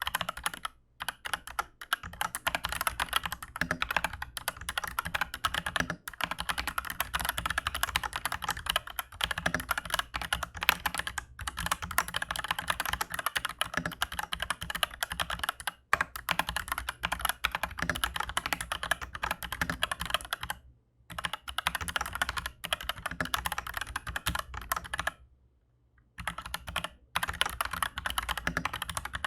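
Aflion AF82 mechanical keyboard with Aflion Iceberg linear switches on a steel plate and PBT keycaps, typed on quickly and continuously with a few short pauses.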